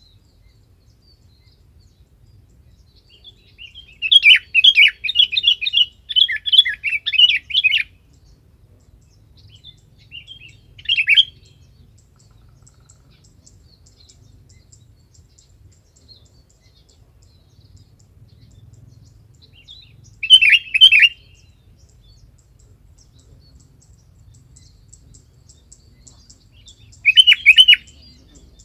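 Sooty-headed bulbul (kutilang) calling, a lure call for other bulbuls: a few seconds of quick, bubbly chirps about four seconds in, then short bursts of the same call three more times with long pauses between.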